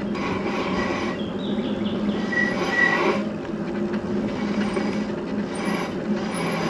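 Steady engine and road noise heard from inside a vehicle driving slowly, with a constant low hum and two short high-pitched tones a little over two seconds in.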